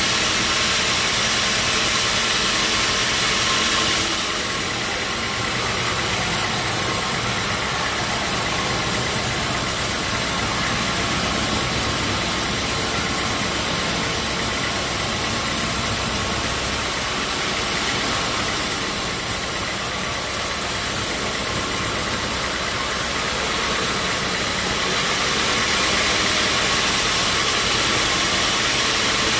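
Sawmill bandsaw machinery running steadily with a dense mechanical hiss. The hiss dulls about four seconds in and grows brighter again near the end.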